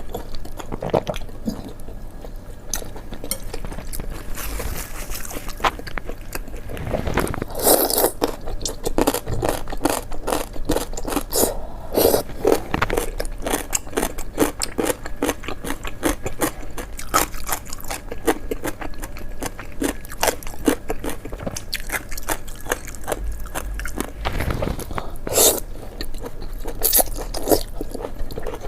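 Someone chewing and biting into a roujiamo, the Chinese flatbread and meat sandwich, with a rapid run of crisp clicks. Louder bites come around 8 seconds in, around 12 seconds, and again near the end.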